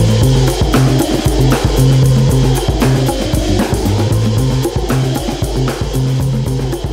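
Background music with a drum kit playing a steady beat over a bass line.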